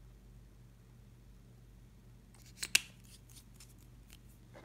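A couple of sharp plastic clicks about two and a half seconds in, the second the louder, from the glitter-eyeliner tube and its applicator being handled, with a few faint ticks after and a softer click near the end as the cap is fitted back on.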